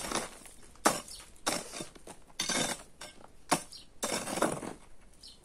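Metal hoe blade chopping and scraping into dry, stony earth, digging out a drainage channel. The strokes come about one a second: some sharp clinks as the blade hits stones, some longer scrapes as soil is dragged out.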